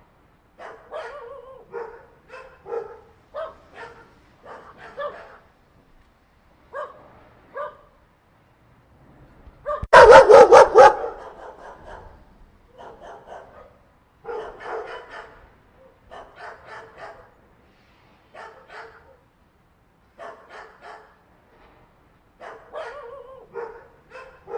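Several dogs fighting, barking and yelping in short, repeated bursts, with a much louder quick series of barks about ten seconds in.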